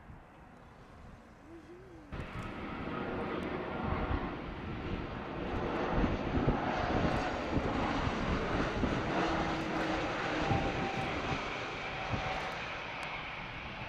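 Faint wind noise for about two seconds, then a sudden switch to a Bombardier Global 7500 business jet's twin GE Passport turbofans running loud and steady, with faint whining tones over the jet noise.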